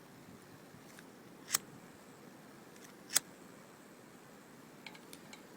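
A lighter struck twice, two sharp clicks about a second and a half apart, then a few faint clicks near the end, without catching: the speaker puts its trouble lighting down to the cold.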